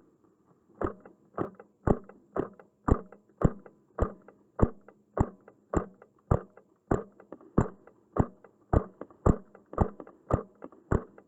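Footsteps walking at a steady pace, about two steps a second, each a short thud.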